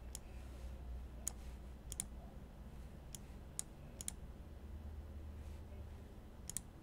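Computer mouse clicking at scattered intervals, some clicks in quick pairs, as the view is stepped through a 3D model in a web browser, over a faint low hum.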